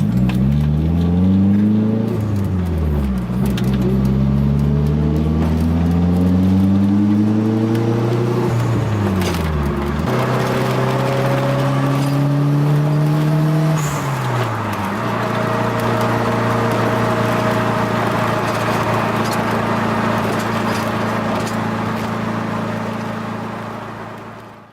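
Nissan 240SX's SR20DET four-cylinder engine driving under load. Its note climbs and drops several times through gear changes in the first half, then holds steady at cruise.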